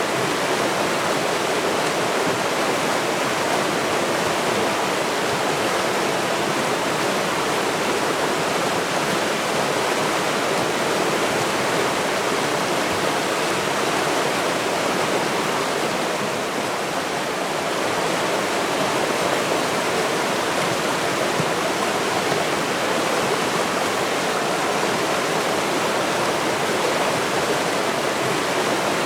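River water rushing steadily, a dense even noise of flowing water that briefly eases slightly about two-thirds of the way through.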